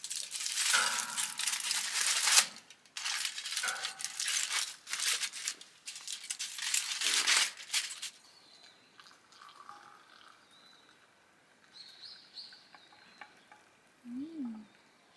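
Aluminium foil crinkling and rustling in repeated bursts as a foil-wrapped piece of pizza is handled and set on a heater top, for about the first eight seconds, then much quieter.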